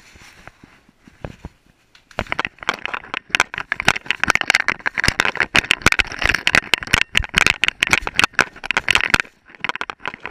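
Dense, rapid clattering and scraping of a GoPro camera jostled in its mount on a moving dog, starting about two seconds in and stopping shortly before the end, with lighter knocks at the start.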